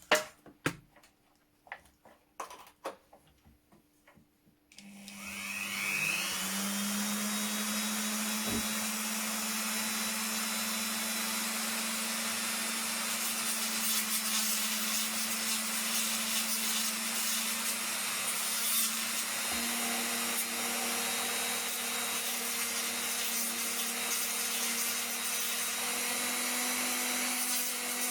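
A few light taps and clicks, then a small electric power tool switches on about five seconds in, rising in pitch as it spins up and then running steadily with a whine.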